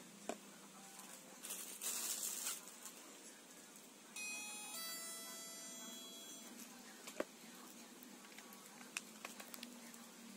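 Light handling rustle, then a two-note electronic chime, a higher note and then a lower one, ringing for about two seconds and fading out, with a few light clicks.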